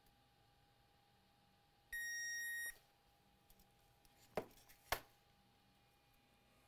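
A single electronic beep from a digital multimeter, one steady high tone lasting just under a second, about two seconds in. Two sharp clicks follow a little past four seconds.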